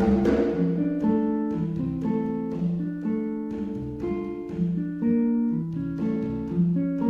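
Instrumental music: a melody of plucked, guitar-like notes over a low bass line.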